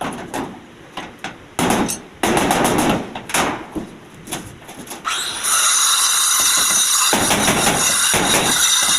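Hammer blows and clangs on steel gate parts for about five seconds. Then a power tool starts about five seconds in and runs loud and steady with a high-pitched whine.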